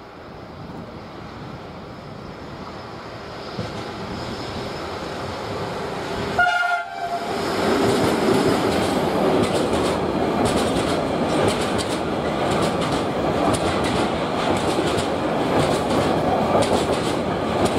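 Freight train approaching and passing, getting steadily louder, with a short horn blast about six seconds in. Then the wagons run by with loud rumbling and a rapid clatter of wheels over rail joints.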